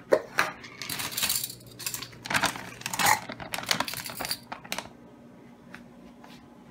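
Plastic measuring cups clacking together and a plastic bag of almond flour crinkling as they are handled; the clatter stops after about five seconds.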